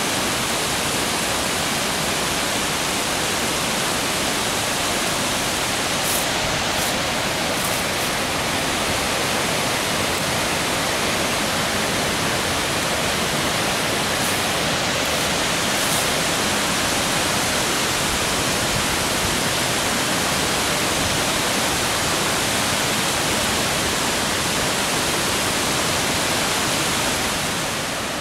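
Waterfall rushing: a steady, even hiss of falling water that holds one level throughout.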